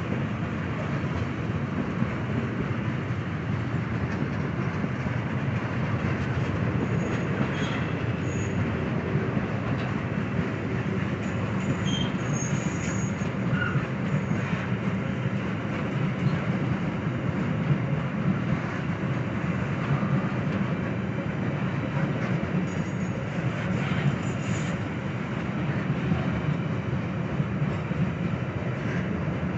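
Freight train of tank cars pulled by two ES44 diesel locomotives working up a grade, passing steadily: a continuous low rumble with wheels clattering over the rails and a few brief high wheel squeals.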